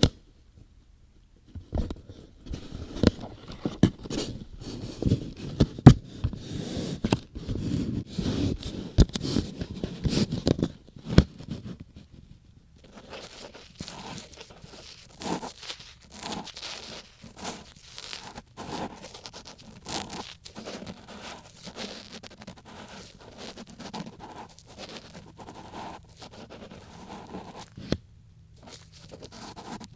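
Ear-cleaning ASMR: an ear pick scraping and rubbing close against the microphone, with many small clicks. Louder rubbing and clicking at first, then softer, finer scratching from about twelve seconds in, with a brief pause near the end.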